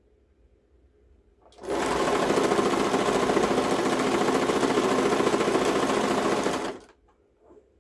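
Home sewing machine stitching at a steady, fast speed, with a rapid even needle rhythm. It starts about a second and a half in and stops after about five seconds.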